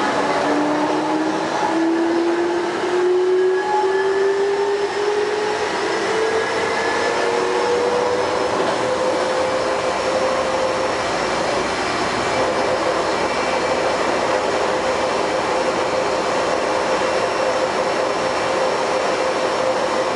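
Taipei Metro Wenhu line Bombardier rubber-tyred train running, with steady rolling noise throughout. A motor whine rises in pitch over the first ten seconds or so as the train speeds up, then holds steady.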